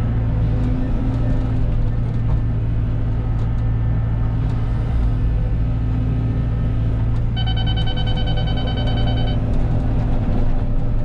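Cat 313 excavator's diesel engine running steadily under work. About two-thirds of the way in, the machine's grade-control beeper sounds one steady tone for about two seconds.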